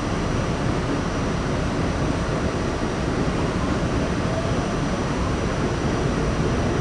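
Steady rumble and rush of an R68 subway car running, heard from inside the car, with a faint high steady whine alongside.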